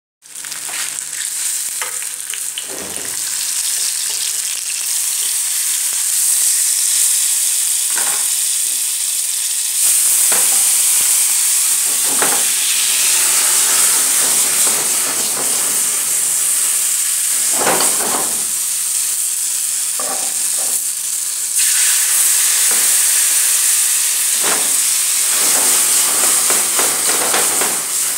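Bananas flambéing in a pan of orange juice and cola: the liquid sizzles with a steady hiss and scattered pops and crackles. The hiss gets louder about ten seconds in and again about two-thirds of the way through.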